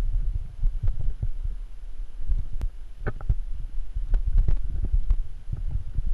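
Irregular low thumping and rumbling with scattered light knocks: a water bottle sloshing and knocking in the hiker's pack as he moves.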